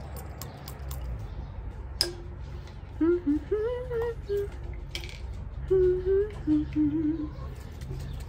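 A woman humming a short wavering tune in two brief phrases with her mouth closed. A few light clicks and one sharp click come before it, about two seconds in, over a steady low rumble.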